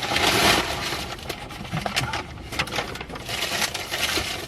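Paper takeout bag rustling and crinkling as it is handled, with scattered small clicks and knocks.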